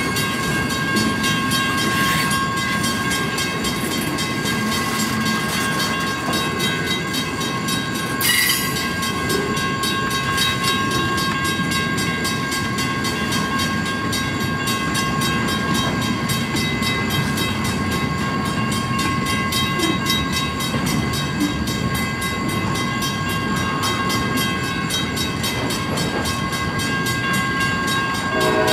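Freight train flatcars rolling past: a steady rumble of steel wheels on rail with fine clicking, a thin steady squeal from the wheels over it, and a sharp clank about two seconds in and again about eight seconds in.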